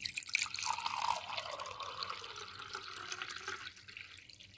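Water poured from a plastic bottle into a ceramic mug: a steady splashing pour that weakens toward the end.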